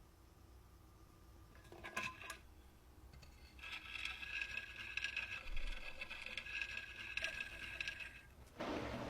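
Mini sewing machine running for about four and a half seconds, a steady high whine with fast ticking from the mechanism. A brief clatter comes about two seconds in and a short rush of noise near the end.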